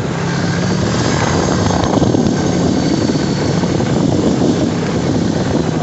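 Honda ATV engine running under way over a steady rushing noise. Its even drone wavers for a few seconds in the middle before settling again.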